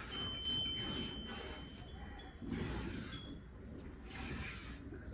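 Two sharp metallic clinks, the first leaving a clear ringing note that hangs for about two seconds, typical of a steel milk pail knocked during milking.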